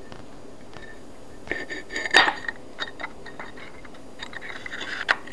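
Small metal clicks, clinks and scrapes from handling a Zippo lighter insert and needle-nose pliers while threading the wick through it. The clicks come in two clusters, the sharpest about two seconds in and another run near the end.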